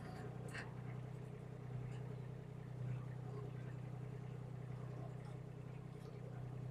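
Mini excavator's diesel engine running steadily with a low, even hum. A faint click comes about half a second in.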